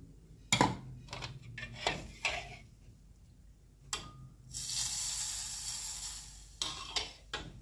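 Metal wok and pot clanking a few times, then hot cooking oil poured over chopped garlic, hissing and sizzling for about two seconds, followed by more clanks.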